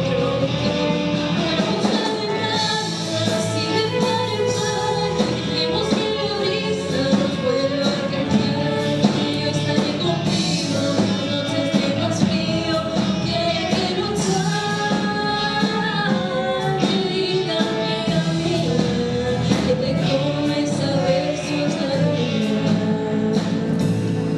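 Live rock band playing a song, a singer's voice carrying the melody over drums and amplified instruments.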